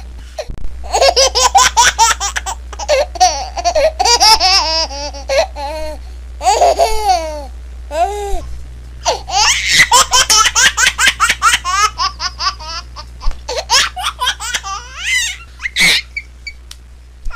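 Baby laughing: runs of rapid high-pitched giggles and squeals, broken by short pauses for breath.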